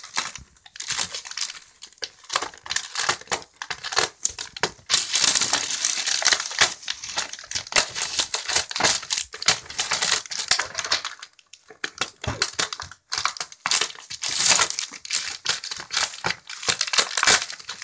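Gift-wrap paper, foil and plastic packaging crinkling in dense, irregular bursts as a West Highland terrier noses and paws through it, with a short lull about two-thirds of the way through.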